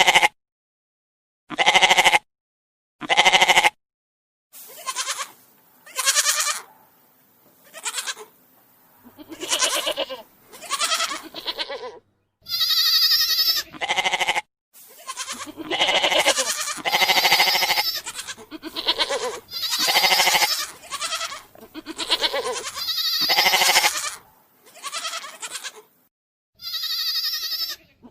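Goats bleating: a string of separate calls, some short and some drawn out for a second or more, following one another with brief gaps.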